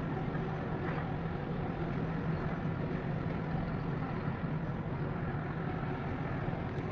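Steady low rumble and hum of distant city and harbour background, mostly road traffic, even throughout.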